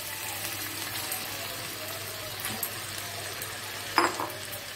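Marinated chicken pieces frying in a little hot oil in a kadai, with a steady sizzle. A short knock about four seconds in.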